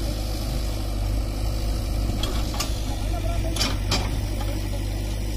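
JCB backhoe loader's diesel engine running steadily, a low even drone, with a few short hisses about halfway through.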